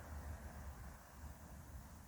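Faint, steady noise: a low, fluttering rumble under an even hiss.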